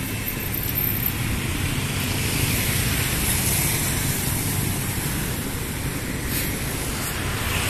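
Steady road traffic noise, swelling slightly in the middle.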